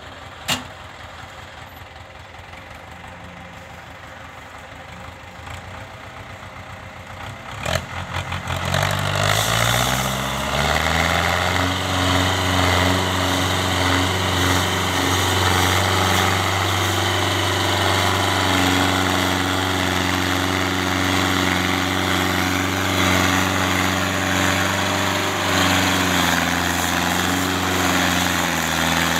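Belarus 510 tractor's diesel engine, faint at first, revs up about eight seconds in and then runs loud and steady under load, pulling a heavily loaded sugarcane trolley. A single sharp knock sounds near the start.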